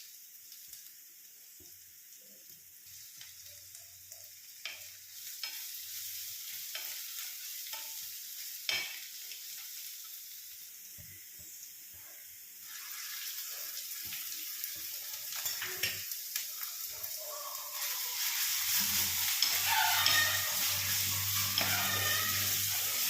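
Salted sliced onions frying in coconut oil in a pan, sizzling as they are stirred, with a few knocks and scrapes of the spoon against the pan. The sizzle grows louder about halfway through and again near the end, when a low hum joins in.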